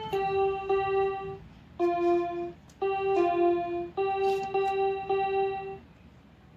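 Child's toy electronic keyboard playing a slow tune of single held notes, one at a time, about eight in all with short gaps, stopping near the end.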